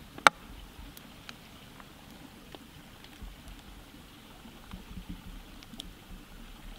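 Wood fire crackling: scattered faint ticks and pops over a low rumble, with one sharp, loud pop about a third of a second in.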